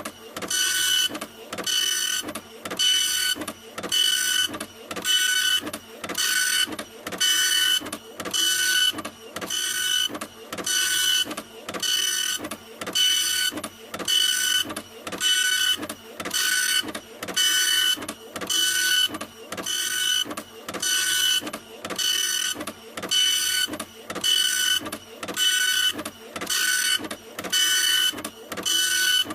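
Printer running in a steady rhythm. It makes a whirring pass a little more than once a second, each pass carrying a steady high whine, and the cycle repeats evenly.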